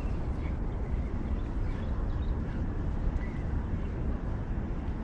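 Wind buffeting the microphone, a steady low rumble that flickers in strength.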